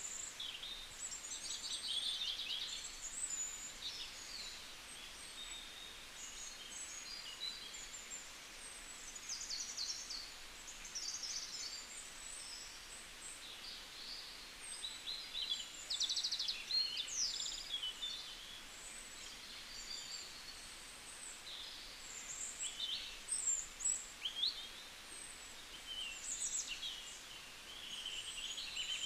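Several birds chirping and calling, short rising and falling chirps in quick succession over a faint steady hiss.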